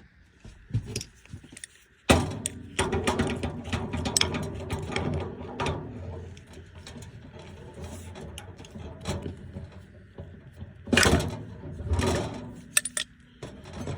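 Hand tools and metal parts clicking and clattering during work on an HVAC evaporator coil's expansion valve. The loudest clatters come about 11 and 12 seconds in.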